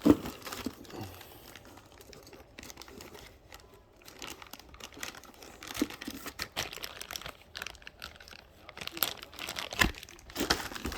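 Packaging crinkling and tearing as a small cord kit is unwrapped and handled, with irregular rustling and a few sharp knocks, the loudest at the very start and just before the end.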